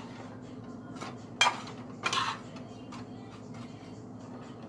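Spoon clattering against a skillet twice while moving butter around the waffles, over a faint low steady hum.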